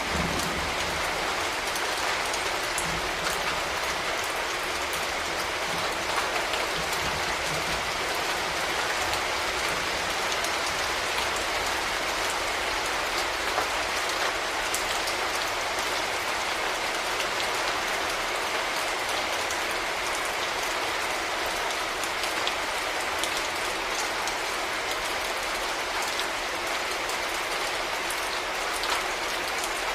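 Steady rain falling, an even hiss of rain on a surface with many small drop ticks scattered through it.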